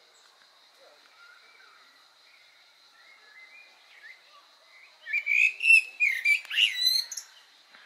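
Male common blackbird giving a quick run of loud chattering chirps, starting about five seconds in and lasting about two seconds. Faint songbird warbling sits underneath before it.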